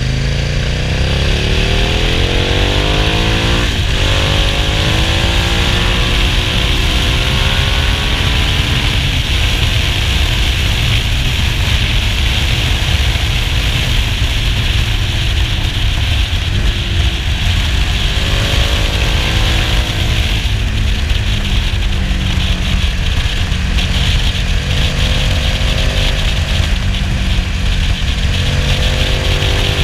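Motorcycle engine heard from onboard while riding at speed, its revs rising and falling several times with throttle and gear changes, over a constant rush of wind.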